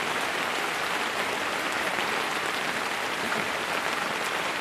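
Steady rain falling onto floodwater, an even hiss with no pauses.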